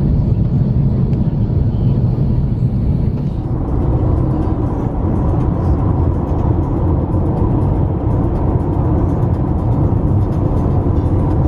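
Steady rumble of an airliner cabin on descent, giving way about three and a half seconds in to the road and engine noise of a moving car.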